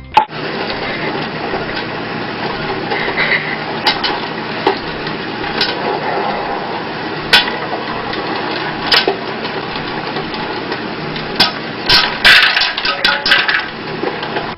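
Sharp knocks and clatters of hard objects over steady background noise, with a burst of several loud clatters close together near the end.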